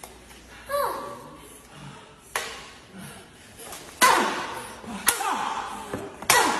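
Light-up toy lightsabers clashing, their built-in sound effects going off about five times, each a sudden hit that fades with a sweeping electronic tone. A child's shout comes about four seconds in.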